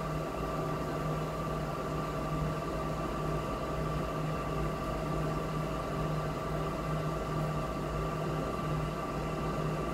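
Steady mechanical hum: a low rumble with a few constant tones over an even hiss, unchanging throughout.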